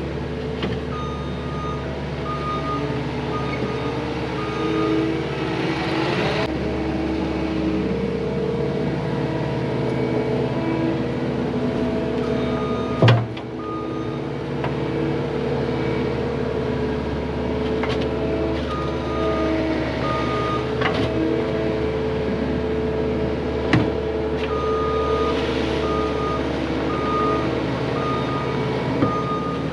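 Diesel heavy equipment engine running steadily while its backup alarm beeps in three spells. A sharp knock comes a little before halfway, with a few lighter clicks later.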